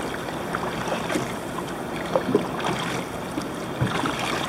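Sea water slapping and splashing around a kayak's hull on open-ocean swell, with a few short splashes and wind rushing over the microphone.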